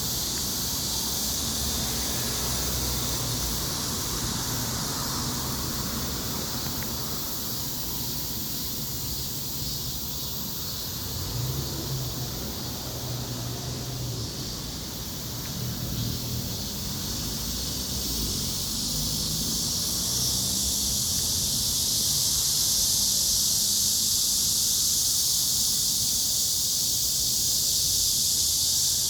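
Outdoor ambience: a steady high hiss that grows louder about two-thirds of the way in, over a patchy low rumble.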